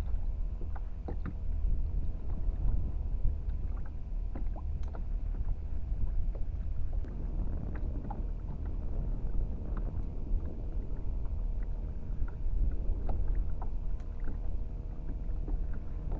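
Water moving against a fishing kayak's hull, over a steady low rumble, with scattered light clicks and knocks.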